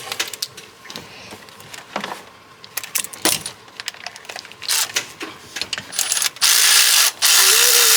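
Metal tools clinking and clicking, then about six and a half seconds in a power tool starts running loudly, cutting out once for a moment. This is the bolt being run out to remove the belt tensioner.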